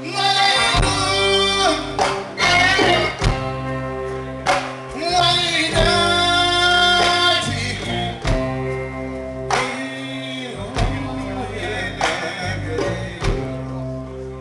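Live Malian blues band: a man singing over electric guitar, bass guitar and drum kit. The singing is strongest for the first two seconds and again from about five to seven and a half seconds in, with the instruments carrying on between.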